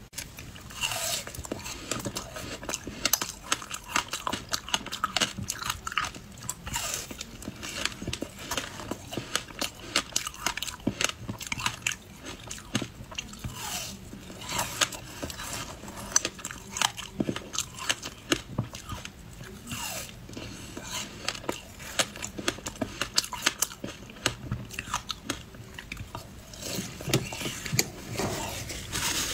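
Flavoured ice, including a passion-fruit ice heart, being bitten and chewed close to the microphone: rapid crunching and cracking that keeps going with brief gaps between bites.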